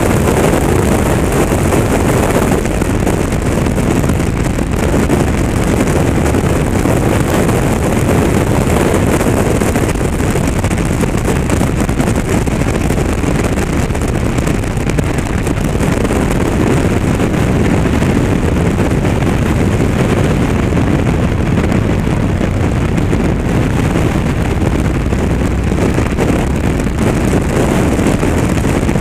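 Honda CTX1300 motorcycle riding at a steady road speed: its V4 engine running under a constant rush of wind on the microphone.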